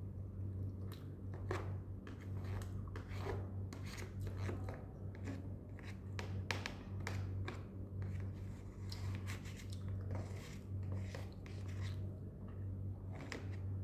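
Metal spoon scraping and clicking against a black plastic takeaway container, mixed with chewing. A steady low hum runs underneath.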